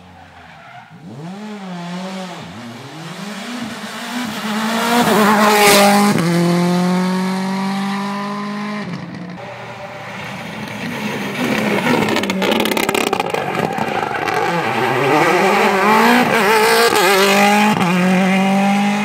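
Mini John Cooper Works WRC rally car's turbocharged four-cylinder engine revving hard through gear changes, pitch rising and falling, as the car approaches and passes close by, loudest about six seconds in with a drop in pitch. The engine builds up loud again in the second half as a car comes through once more.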